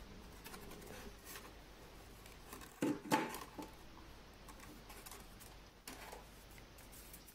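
Clear plastic clamshell blister pack being opened and handled, with light rustling and a louder pair of plastic clicks and crackles about three seconds in.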